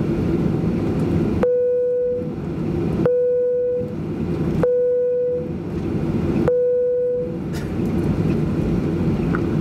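Steady cabin and engine noise of a Boeing 737-800 taxiing. Four short pitched tones ring out over it at even intervals of about a second and a half, each starting sharply and fading within a second.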